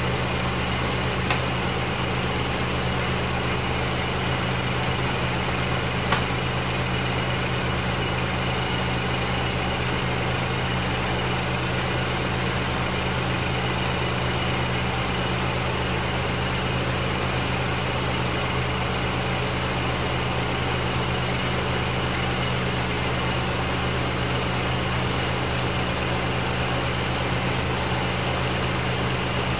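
Engine idling steadily, a constant low hum, with two light clicks, one about a second in and one about six seconds in.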